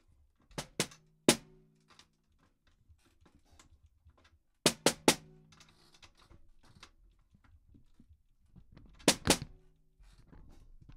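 Snare drum struck with a stick in quick groups of three, three, then two, each group leaving a short low ring from its slack top head, with faint small clicks in the gaps as the top head's tension rods are tightened to take the wrinkle out of it. The bottom head is cranked fully tight.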